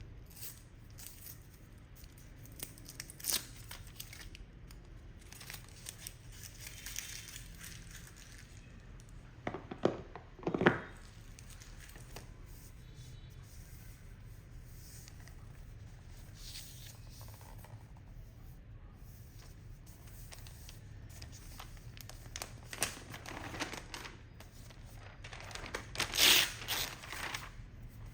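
Unboxing packaging being handled: paper and plastic wrap crinkling and tearing in short, scattered rustles. The loudest bursts come about ten seconds in and again near the end.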